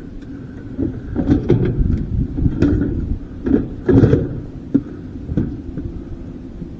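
A run of irregular knocks and clanks over a low steady rumble, from parts of a dishwasher being handled and pulled apart for scrap.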